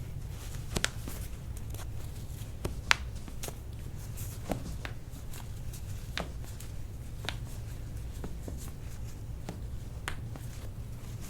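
Toe joints being cracked one after another: a series of sharp, separate pops a second or two apart, about ten in all, over a low steady hum.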